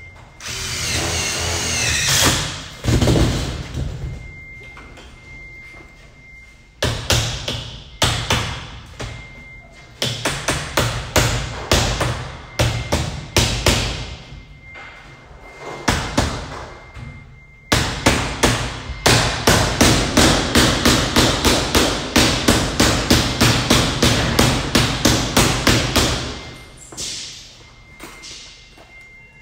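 Hammer blows on a galvanised sheet-metal duct and its Ductmate flange frame, each strike ringing briefly. After about two seconds of steadier noise at the start, the blows come in scattered groups, then in a steady run of about four a second, stopping a few seconds before the end.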